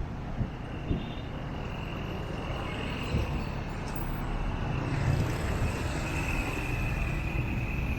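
Road traffic on a city street: vehicle engines running and passing, with a steady high whine throughout. There are a few short knocks in the first second, and a louder vehicle passes about five seconds in.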